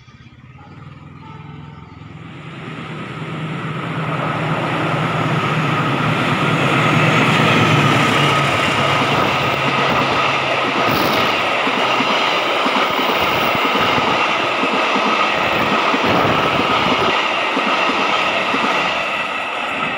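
Diesel-hauled passenger train passing close by, rising over the first few seconds to a steady loud rush and rumble of coach wheels on the rails. A low engine drone is heard in the first half and then drops away.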